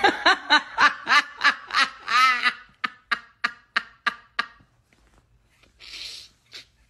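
A woman laughing hard: voiced laugh pulses about four a second for roughly two seconds, trailing into short breathy pulses, then a pause and a long breath near the end.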